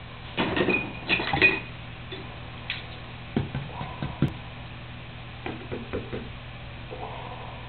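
Cardboard box lid rattling and tapping as a person flaps it and a cat bats at it with her paw. There is a cluster of loud papery clatters in the first couple of seconds, then scattered light knocks.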